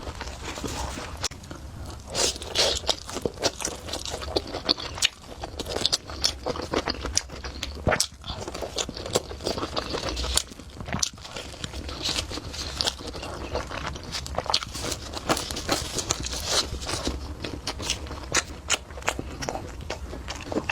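Close-miked chewing and crunching of food: dense, irregular crisp crunches and wet mouth clicks, with bites following one another throughout.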